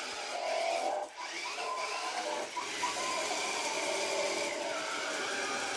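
Small electric motor of a toy remote-control car whining, its pitch shifting up and down as the speed changes, with a brief drop about a second in.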